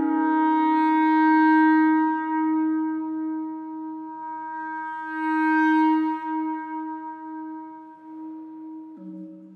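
Solo clarinet holding one long note that swells twice and slowly fades, then moving to a lower note near the end.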